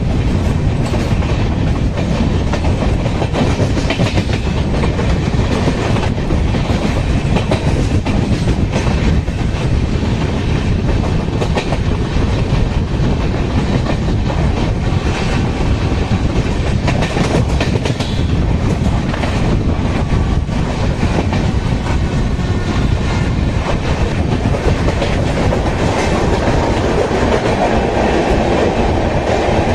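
Express train running at speed, heard from beside the coach: a steady rumble of wheels on rail with a rapid clickety-clack over rail joints and points. Near the end the sound grows fuller as the train runs alongside a platform and a standing train.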